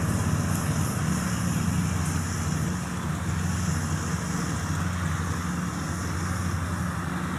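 Engine of a tracked rice-hauling cart loaded with sacks, running steadily with an even low drone.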